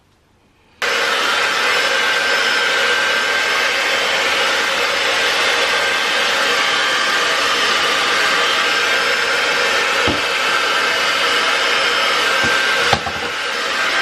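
Handheld hair dryer switched on about a second in and running steadily: a loud, even rush of air with a faint whine.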